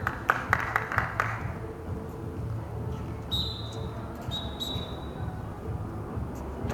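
Outdoor basketball game in play on a concrete court: a quick run of sharp knocks and bounces in the first second or so, then three short high-pitched chirps near the middle, over a steady low rumble.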